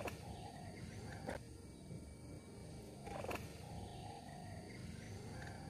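Low rumble of wind buffeting the microphone outdoors, with a few faint clicks about a second and about three seconds in.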